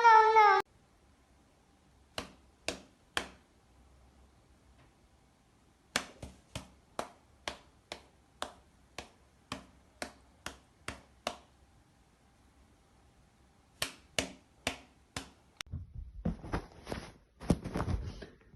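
A series of sharp taps or clicks in short runs: three about half a second apart, then after a pause a longer run at about two a second, another short run, and a busier, noisier stretch of knocks near the end.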